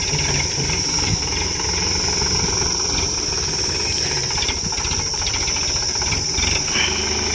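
Sonalika tractor's diesel engine running steadily while working a front loader, with a steady high-pitched insect drone over it.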